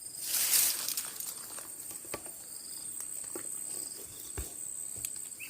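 A steady high-pitched insect trill, with a brief rustle about half a second in and a few scattered light clicks.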